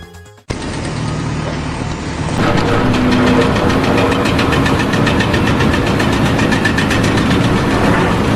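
A loud engine running with a fast, even pulsing; it starts abruptly about half a second in and grows louder about two seconds later.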